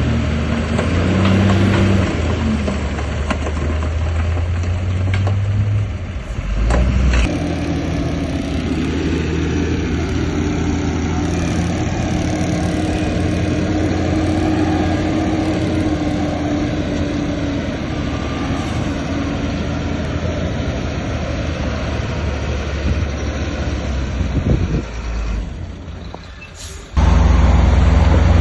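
Heavy diesel earthmoving machinery running and working, its engine note wavering under load. The sound changes abruptly about seven seconds in and again near the end.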